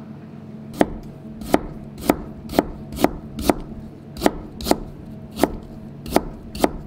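Kitchen knife slicing peeled ginger thin on a cutting board: a dozen crisp knocks of the blade on the board, about two a second, starting a little under a second in.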